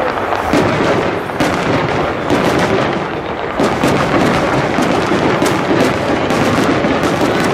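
Aerial fireworks shells bursting in a dense barrage, with many sharp reports following close on one another and overlapping into a continuous rumble.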